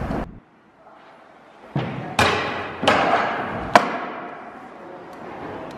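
Stunt scooter on a concrete skatepark floor: three sharp clacks of the wheels and deck hitting the ground about two, three and nearly four seconds in. Each is followed by the fading rumble of the wheels rolling.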